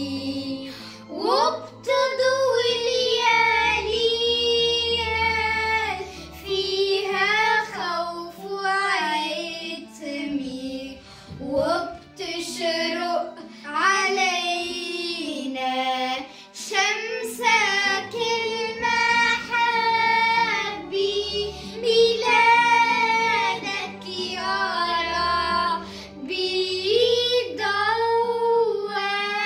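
Two young girls singing a Christmas hymn together, over a low instrumental accompaniment.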